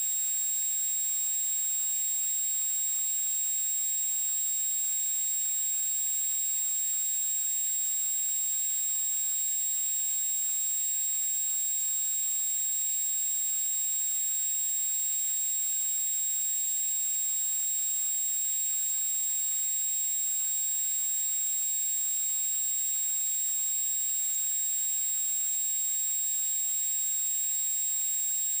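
A steady, unchanging high-pitched electronic whine over a faint hiss.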